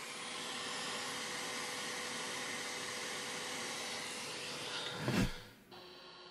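Hot air rework station (JBC) blowing a steady hiss of hot air from its nozzle, with a brief louder rush about five seconds in before it cuts off.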